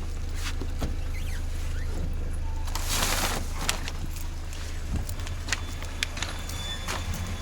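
Peugeot 407's EW10J4 2.0-litre four-cylinder petrol engine idling with a steady low hum. Scattered clicks and a short burst of hiss about three seconds in.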